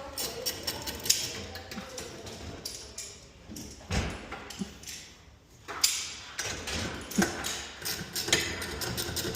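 Irregular metal clicks, taps and knocks from hand tools and hardware while a broken garage door torsion spring is being replaced, with a few louder knocks along the way.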